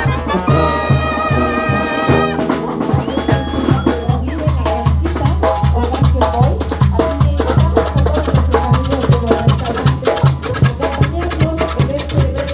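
Oaxacan brass band playing live. A long held brass chord near the start gives way at about two seconds to a steady dance beat of repeated low bass notes and drums.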